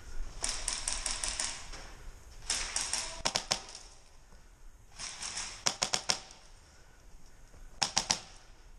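Airsoft rifles firing in short rapid bursts, a clattering string of sharp clicks; about four bursts, the last shortly before the end.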